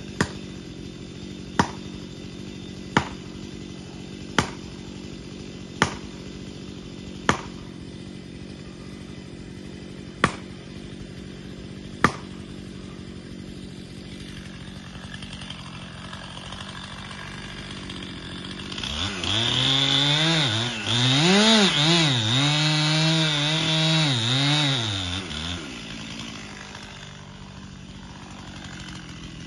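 Eight sharp, evenly spaced blows drive a steel felling wedge into the back cut of a cherry trunk, over a chainsaw running at idle. About two-thirds of the way in, the chainsaw is revved up and down loudly for several seconds, then drops back to idle.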